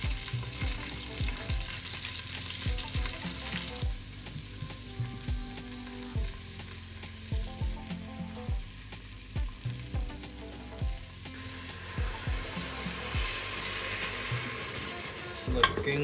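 Diced carrots, celery and onion sizzling in the inner pot of an electric pressure cooker on sauté, being stirred, for a beef stew. The sizzle is strongest at the start and again near the end, with soft music with a steady beat underneath.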